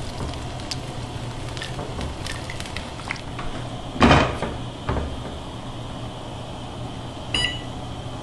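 A wooden spoon knocks and scrapes lightly in a stockpot of stew, then the pot lid is set on with a sharp clank about four seconds in. Near the end the range's control panel gives one short electronic beep as a button is pressed.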